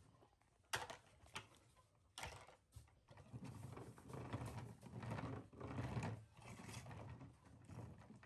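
Hard plastic toys knocking on a wooden tabletop in a few sharp clicks, then a plastic toy dump truck's wheels rolling and rattling across the wood in an uneven low rumble.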